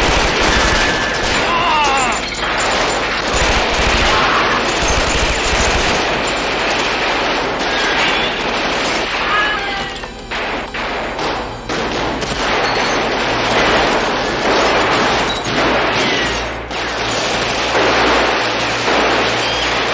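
Sustained automatic gunfire from several guns at once, a near-continuous fusillade of rapid shots with only brief lulls.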